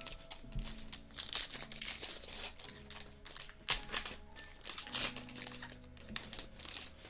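Foil wrapper of a Bowman Chrome baseball card pack crinkling and crackling as it is torn open and peeled back by hand.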